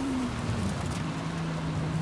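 Sports car engine whose note drops over the first half second as revs fall, then holds a steady lower note, over a steady hiss.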